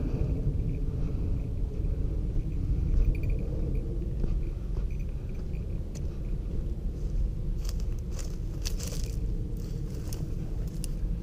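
Wind buffeting a moving camera's microphone: a steady low rumble. In the second half come brief crunching crackles, like steps through dry brush and gravel.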